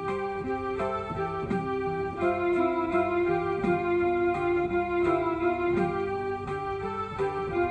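Instrumental music on an electronic keyboard: held organ-like chords over a stepping bass line, with a soft, even beat and no singing.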